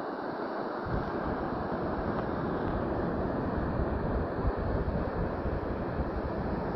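Wind buffeting the phone's microphone, gusting harder with a deep rumble from about a second in.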